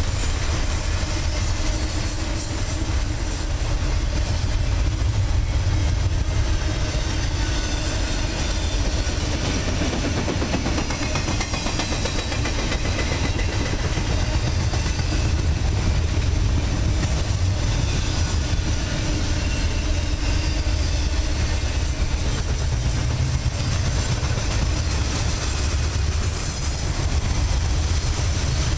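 Double-stack intermodal container train's well cars rolling steadily past: steel wheels running on the rails, a continuous low noise that stays even throughout.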